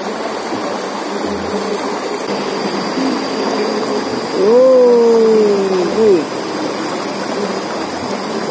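Shallow river rushing steadily over boulders and rocks. About halfway through, a loud drawn-out tone that falls slightly in pitch sounds for under two seconds, followed by a brief second one.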